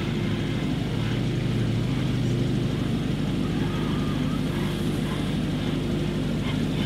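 A steady, low, engine-like drone that holds an even level throughout and swells slightly about a second in.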